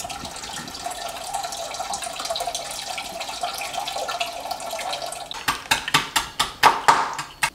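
Non-alcoholic beer poured in a steady stream from a can into a metal pot, for about five seconds. Near the end, a quick run of sharp clicks or knocks.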